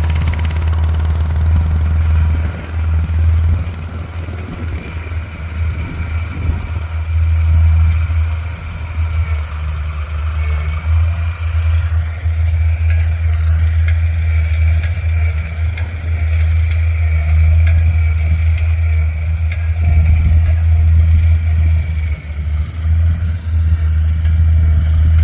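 A vehicle engine running steadily: a deep continuous hum with a faint high-pitched whine over it.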